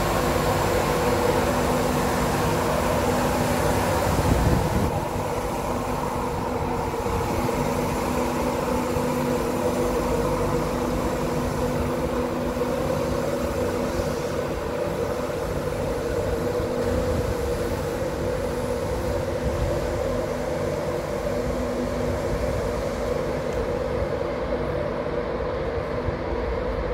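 LNER Class 91 25 kV electric locomotive 91131 pulling out, with the steady hum of its electrical equipment over low rumbling noise as it moves away. A brief loud thump about four seconds in, after which the sound drops a little.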